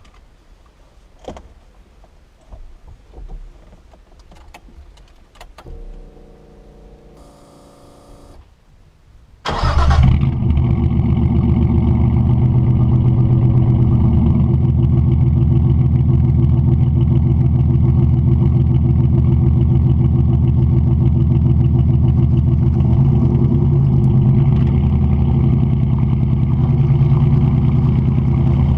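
Datsun 240Z straight-six engine being started: a few faint clicks, a couple of seconds of whirring as the starter cranks, then the engine catches about ten seconds in and settles into a loud, steady idle.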